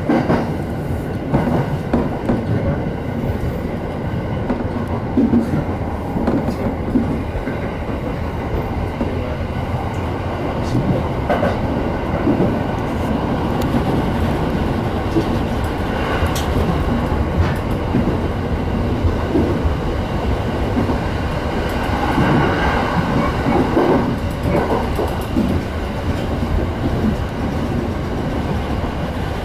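Electric commuter train running along the line, heard from inside the front of the train: a steady rumble of wheels on rail, with short clicks as the wheels pass over rail joints.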